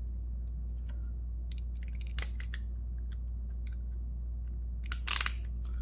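Master Lock 90DSPT keyed trigger lock being pressed together over a trigger guard: scattered light clicks, a sharp click about two seconds in, and a quick run of clicks near the end.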